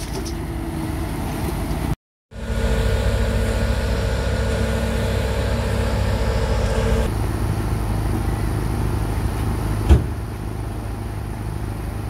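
Diesel engines of a concrete pump truck and a concrete mixer truck running steadily. The sound cuts out briefly about two seconds in, and there is a single sharp knock near the end.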